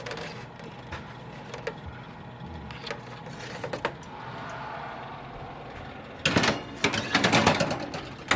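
Scattered light clicks of kitchen utensils on a metal baking sheet of bacon, then a louder run of rapid clattering starting about six seconds in.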